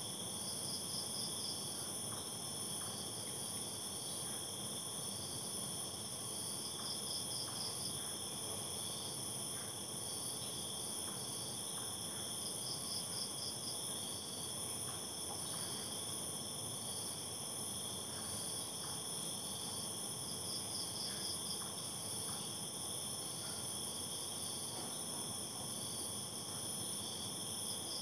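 Night insect chorus: crickets and other insects keep up a steady, high-pitched continuous trill, with a short burst of rapid pulsed chirps repeating every six to eight seconds.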